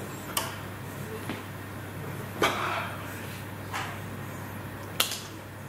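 Steady low room hum with about five short soft knocks and rustles from a signer's hands and clothing as they move, the loudest about two and a half seconds in.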